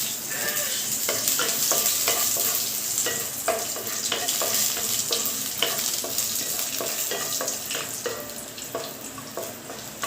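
Cashews and raisins frying in hot ghee in a pan: a steady sizzle, with the repeated scrape and clink of a spoon stirring them against the pan.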